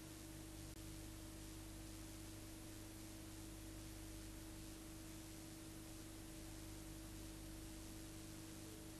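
Faint steady electrical hum and hiss with nothing else in it. This is the noise floor of the recording, with no sound from the scene.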